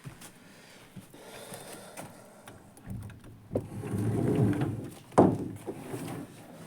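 Handling noises from a small plastic object: a stretch of rubbing or scraping, then a sharp knock a little past halfway.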